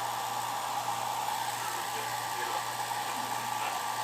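Handheld hair dryer running steadily, a continuous whirring blow with a steady low hum.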